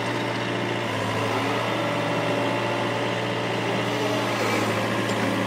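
Excavator's diesel engine running steadily at a constant pitch, with a low, even hum.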